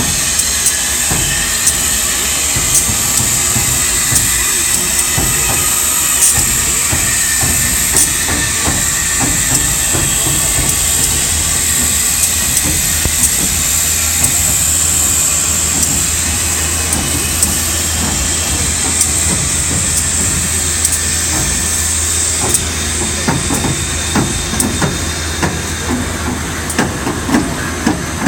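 Southern Railway 4501, a 2-8-2 Mikado steam locomotive, hissing steam steadily over a low steady hum, with scattered metallic clicks and clanks. The hiss eases about two thirds of the way through while the clanks come more often.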